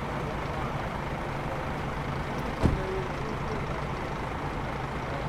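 A stationary coach's diesel engine idling with a steady low hum, and a single thump about two and a half seconds in.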